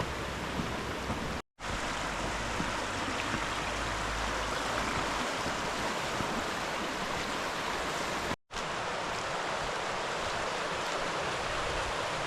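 River water rushing steadily, with a low rumble of wind on the microphone through the first half. The sound cuts out to silence briefly twice, about a second and a half in and again about eight and a half seconds in.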